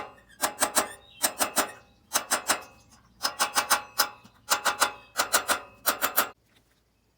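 Metal struck repeatedly in quick bursts of three or four sharp taps, each tap ringing briefly; the tapping stops about six seconds in.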